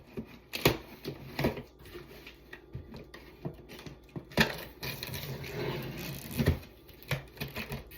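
Cardboard box being handled and opened by hand: scattered knocks and taps, with a stretch of scraping and rustling of cardboard in the middle.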